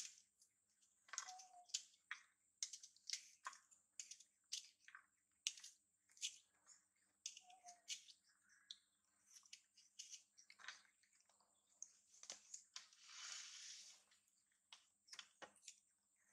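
Faint, irregular crisp crunches and clicks of fruit being sliced with a knife and chewed by two baby macaques, with a longer rustling hiss near the end.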